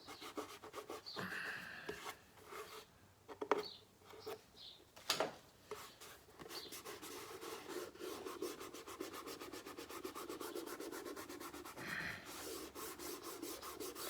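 A freshly laid decal being rubbed down onto a motorcycle's painted side panel to press out air bubbles and wrinkles. A few separate handling knocks come first, then a steady run of quick rubbing strokes through the middle.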